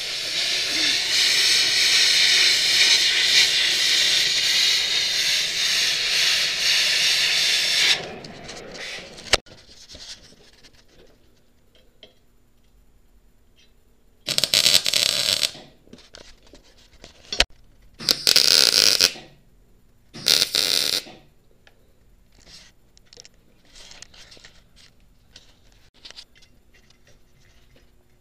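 Power grinder with a wire brush wheel running against a steel frame, stripping paint, steady for about eight seconds before it stops. Later come three short bursts of loud noise about a second each.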